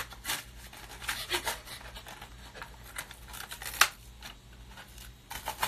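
Rustling and crinkling of a phone case's paper packaging as it is worked open by hand, in short scattered crackles.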